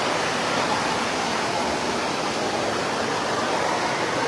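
Steady rushing, water-like noise filling a large indoor swimming pool hall, with faint voices of bathers under it.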